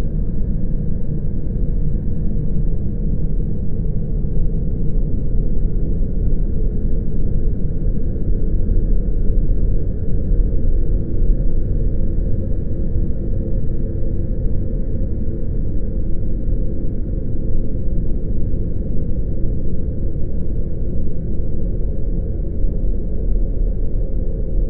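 Steady, dark low rumbling drone of a scary 'haunted forest' ambient sound effect, unchanging, with no distinct events standing out.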